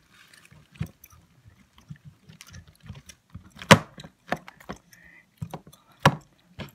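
Sticky homemade glue-and-borax slime being kneaded and stretched by hand in a plastic tub, with scattered clicks and knocks of the tub against the table. The loudest knock comes a little under four seconds in, another about six seconds in.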